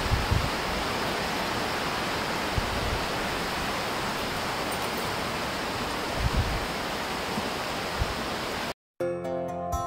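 Steady rushing of a stream flowing under a wooden footbridge, with a few low thuds. Near the end the sound cuts out and gentle music begins.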